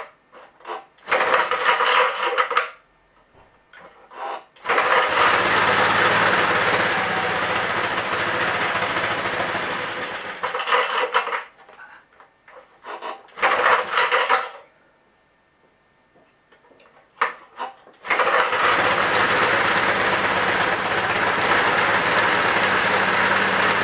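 Small engine being started: a brief burst about a second in, then it runs for about six seconds and dies away, another short burst, and from about 18 seconds it catches and keeps running steadily with a fast rattling beat.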